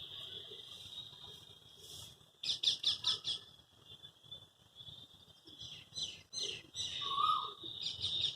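Birds calling: fast runs of sharp chirps, one about two and a half seconds in and another starting near six seconds and running on to the end, over a steady high-pitched drone.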